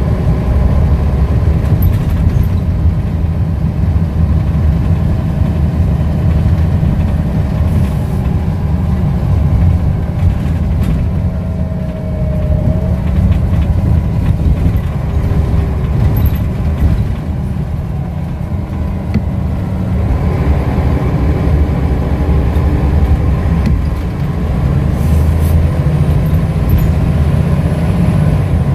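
Scania L94UB bus's diesel engine and ZF automatic gearbox running under way, heard from inside the saloon as a heavy low drone with shifting engine tones above it. The level dips briefly a few times.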